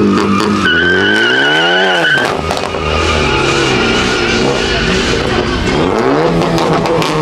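Ford Focus ST launching hard with its tires squealing: a wavering screech, loudest from about one to two seconds in and weaker after, over the engine revving up and dropping back about two seconds in, then revving up again near the end.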